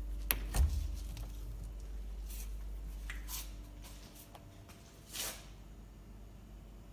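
A sharp click and a knock near the start, a few faint clicks, and a short soft rustle about five seconds in, over a low hum that drops away about four seconds in.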